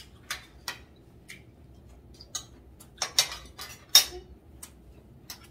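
Knife and fork clinking and scraping on ceramic plates as steak is cut, a scatter of light clicks with two louder clinks about three and four seconds in.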